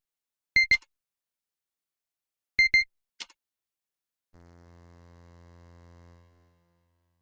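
Electronic sound effects opening a song: two short, high double beeps, each followed by a sharp click, then a low buzzing tone that holds for about two seconds and fades out.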